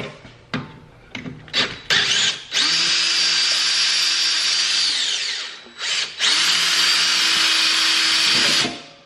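DeWalt cordless drill boring into the head of a stripped brake-rotor retaining screw. It runs steadily in two bursts of a few seconds each with a short stop between, preceded by a few light knocks as the bit is set in the screw.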